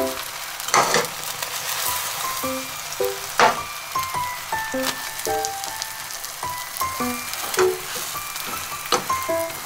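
Eggs sizzling as they fry in a pan, a steady hiss, with a few sharp clicks, the loudest about three and a half seconds in. Light background music of short plucked notes plays over it.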